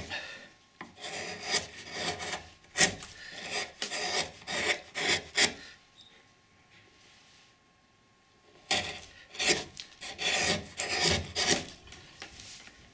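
Carving gouge pushed by hand across a wood block, shaving the surface smooth in short scraping strokes. A run of strokes, a pause of about three seconds in the middle, then a second run.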